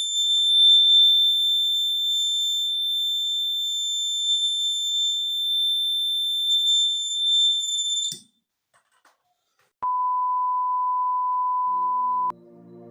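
Buzzer of a homemade 9-volt battery fire alarm sounding a continuous high-pitched tone, cut off with a click about eight seconds in. After a short silence, a steady lower beep lasts about two and a half seconds, and music starts faintly near the end.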